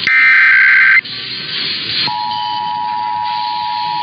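Emergency Alert System test broadcast: a one-second burst of the digital SAME header data tones, then a short gap, then about two seconds in the EAS two-tone attention signal (853 and 960 Hz played together) starts and holds steady.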